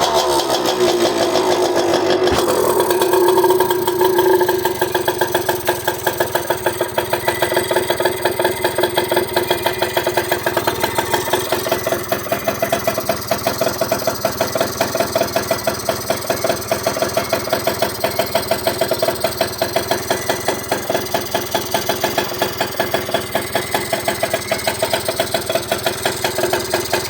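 Jianshe Coyote 80's 80cc single-cylinder two-stroke engine dropping from a rev and settling into a steady, even idle on its newly fitted carburetor, running well. The engine is cut off right at the end.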